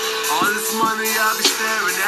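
Hip hop backing track: sharp drum hits under a sustained low note and a gliding, voice-like melody.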